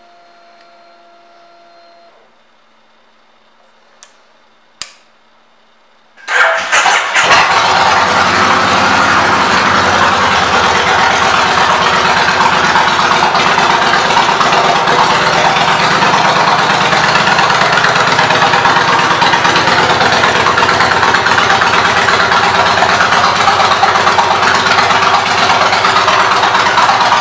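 Kawasaki Vulcan 1600 Mean Streak's V-twin engine being started: a couple of faint clicks, then about six seconds in it cranks briefly, catches, and settles into a steady, loud idle.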